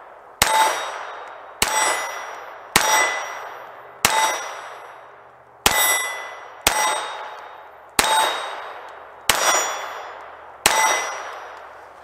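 Nine shots from a Ruger LCP II .22 LR pocket pistol, each hitting a steel plate target, which clangs and rings down over about a second. The shots come at a slow, steady pace, about one every second and a half.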